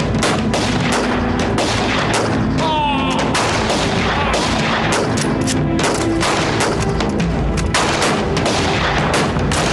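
Battle gunfire: many rifles firing at once, the shots coming thick and overlapping with hardly a gap.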